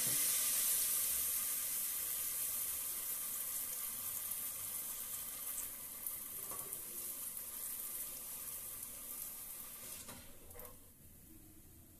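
Batter-coated pappadam deep-frying in hot coconut oil: a steady high sizzle that slowly dies down, then drops away near the end as the fritter is lifted out of the oil.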